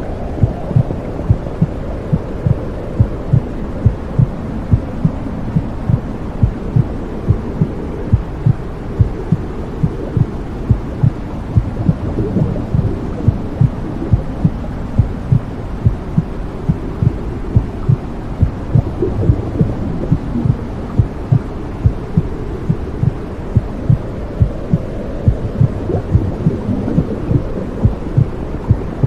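Womb sound for soothing a baby: a steady, low, muffled whooshing rumble with a regular heartbeat thumping through it, about twice a second.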